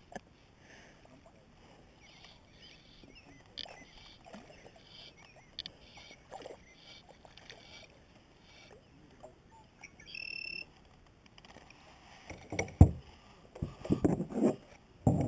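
Handling sounds on a plastic sit-on-top kayak while fly line is stripped in: faint rustles and light clicks, a short high-pitched tone about ten seconds in, then a run of knocks and thumps against the hull near the end as a small fish is brought aboard and held.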